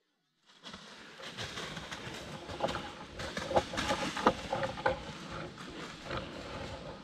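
Dry leaves and brush rustling and crackling, with many sharp snaps of twigs, starting abruptly about half a second in.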